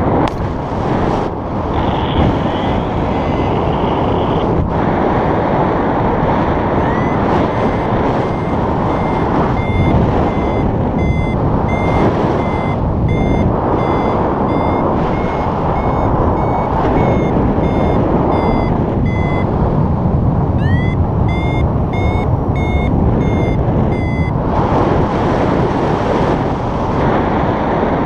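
Paragliding variometer beeping, short tones repeated several times a second that begin about a quarter of the way in, break off briefly and resume faster before stopping near the end, signalling the glider climbing in lift. Under it, steady loud wind rush on the microphone.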